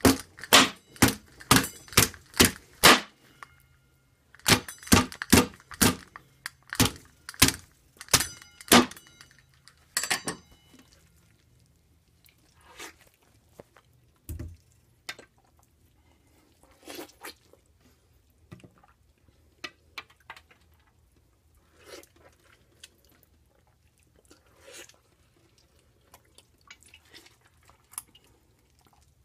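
Steel pizza cutter hacking at a grapefruit on a kitchen countertop: a run of loud, sharp strikes, about two a second, for the first ten seconds. Then come quieter, scattered crunching sounds as the fruit is cut and torn apart.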